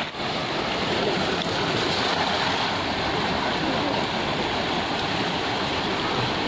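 Fast-flowing river rushing steadily over rocks and rapids.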